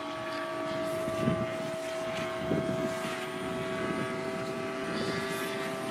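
Aircraft engine running steadily, a drone that holds one pitch.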